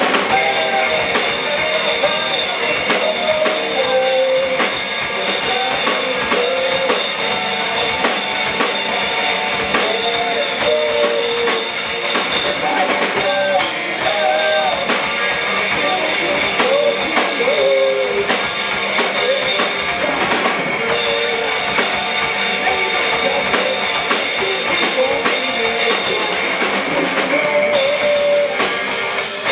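Live rock band playing an instrumental passage: drum kit and electric guitars, with a lead line of notes that bend and slide.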